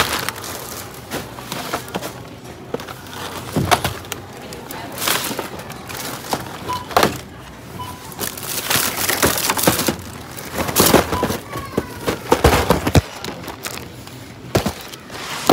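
Plastic snack bags and packaging crinkling and rustling in irregular bursts as groceries are handled. Two faint short beeps come about seven and eight seconds in.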